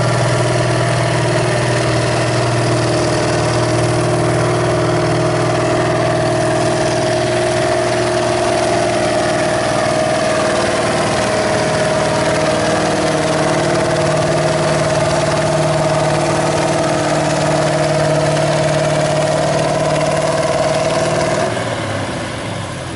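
Massey Ferguson 1150's Perkins V8 diesel running hard at a steady pitch, pulling a weight-transfer sled. Near the end the engine note drops away and the sound gets quieter as the pull finishes.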